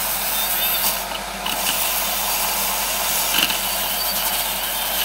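Handheld electric milk frother running steadily, its whisk spinning in hot milk in a mug to froth it.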